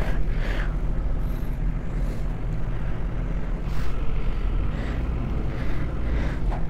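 Steady low hum of a petrol pump's fuel dispenser running while it fills a motorcycle tank.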